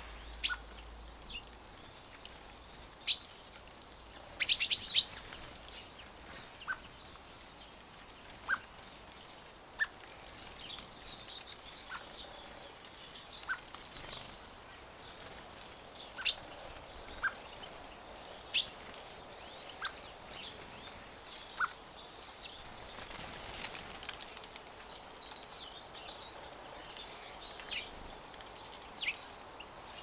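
Small garden birds at a seed-covered bird table: scattered short high chirps and calls mixed with sharp ticks, with a few brief flurries, likely wingbeats, as birds come and go.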